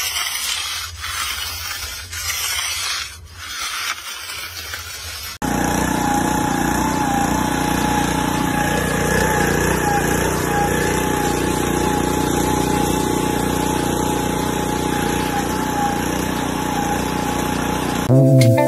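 A steel hand edger scraping along the edge of wet concrete, a gritty scraping with a few small ticks. About five seconds in, the small gasoline engine of a Classen CA-18 core aerator takes over, running steadily at an even pitch.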